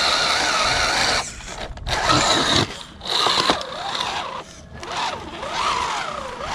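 Electric motor and gear drive of an MST RC scale crawler whining as it drives through deep mud. The pitch rises and falls with the throttle, and the sound drops out briefly about a second in and again just before five seconds.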